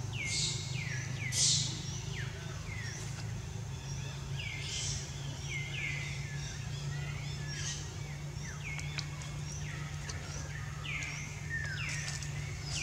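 Forest birds calling over and over, each a short call that sweeps down in pitch, about one a second, over a steady low hum.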